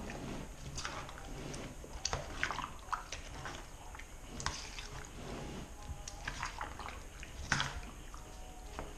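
Raw kahawai chunks in coconut cream being stirred and turned over with a utensil in a bowl: wet squelching and slopping, with irregular sharp clicks of the utensil against the bowl, the sharpest about seven and a half seconds in.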